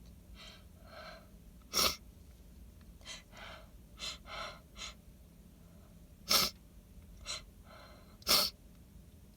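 A woman sneezing three times into cupped hands, wet sneezes set off by pollen-laden flowers, with gasping inhales building up between them.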